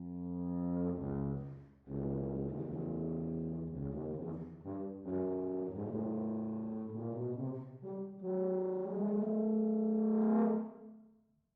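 Solo low brass instrument playing a phrase of held and moving notes, ending on a long sustained note that fades out near the end.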